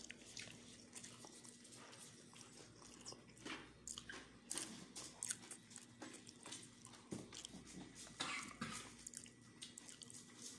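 Faint scattered clicks and smacks of people eating and handling food by hand, over a low steady hum.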